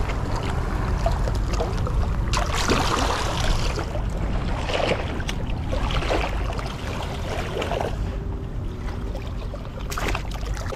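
Shallow seawater sloshing and splashing around a hand reaching into it among rocks, in irregular bursts over steady wind noise on the microphone.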